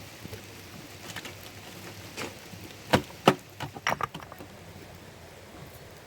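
A quick cluster of sharp knocks and clicks about three seconds in: two loud ones close together, then several smaller ones. They sit over a faint steady hiss.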